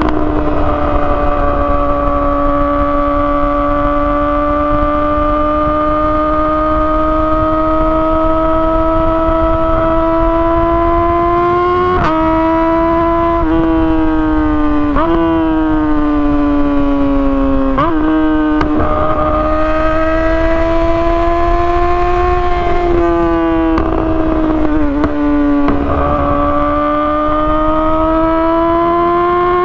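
2017 Yamaha R6's inline-four through an Akrapovic exhaust, running at high revs with a high, steady note. The pitch climbs slowly and then, through the second half, dips sharply several times and recovers.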